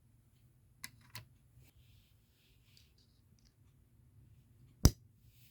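A few light clicks and taps from tools and parts being handled, then one sharp knock near the end.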